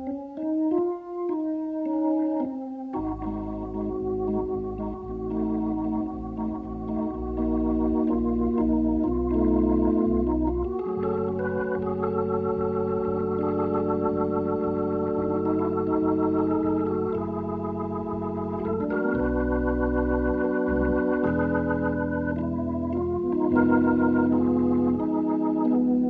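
Jazz organ playing long, held chords with vibrato that change every few seconds, over low bass notes, in a cassette recording of an organ trio. The first few seconds are sparser, with the low notes dropping out until about three seconds in.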